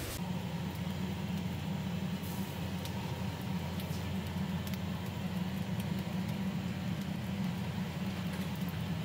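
Commercial gas range burners under earthenware ttukbaegi pots making a steady low rumble, with the samgyetang broth boiling and giving faint scattered pops.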